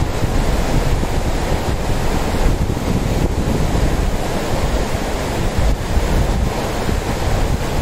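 Mountain river rushing over a rocky bed in shallow rapids: a steady, even rush of water. A low, uneven rumble of wind on the microphone runs underneath.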